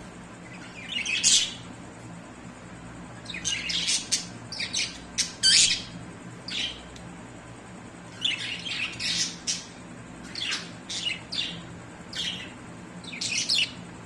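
Budgerigars chirping and squawking: short, high, scratchy calls coming in clusters of several quick notes, with pauses of a second or two between clusters.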